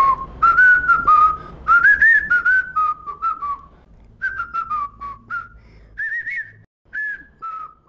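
A person whistling a tune: a string of short notes, several to a second, bending down in pitch.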